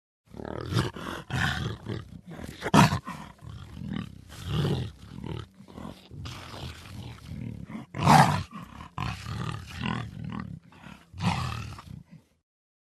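Cheetah vocalising: a run of short, rough bursts of uneven length, loudest about three seconds in and again about eight seconds in.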